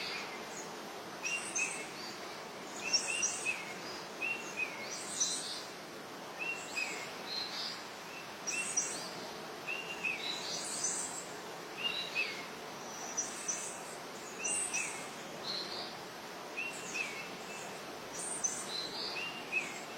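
Birds chirping outdoors in short, repeated calls about once a second over a steady background hiss.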